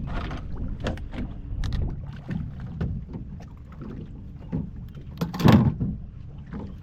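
Knocks and clunks of gear being handled in a small fishing boat over a low rumble of wind and water, with a louder noisy burst about five seconds in.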